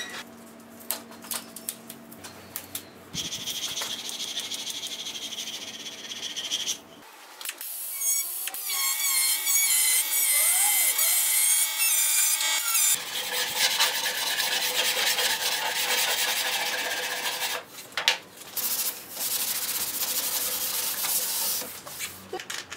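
Small handheld air-powered tool working the edge of HPL laminate: a high whine with hiss and rasping, in several runs with short breaks between them.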